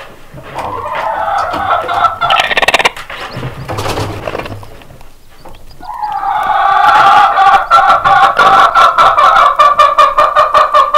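Icelandic mother hen clucking to her day-old chicks, a low throaty run of rapid clucks that grows louder and more continuous in the second half.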